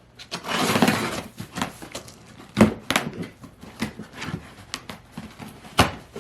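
Handling noise: a short rustle near the start, then a series of light clicks and knocks as objects are picked up and set down.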